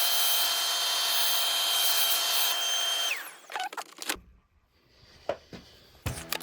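Small vacuum cleaner running with a steady high whine, used to clean dust out of an opened MacBook. About three seconds in it is switched off and winds down, falling in pitch, followed by a few clicks and knocks.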